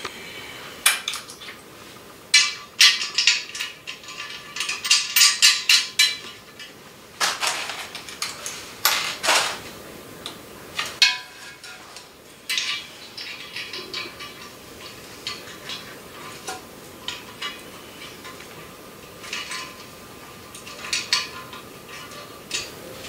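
Metallic clinking and clattering of tools and fittings as a toilet supply line is hooked up to the shutoff valve. Dense clusters of clinks come in the first several seconds, then sparser single ticks.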